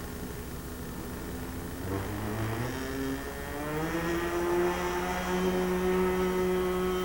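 Small O.S. .28 two-stroke glow engine on an RC model plane, spinning its propeller at low throttle, then opened up about two seconds in. Its pitch climbs and it holds steady at full power for the takeoff run.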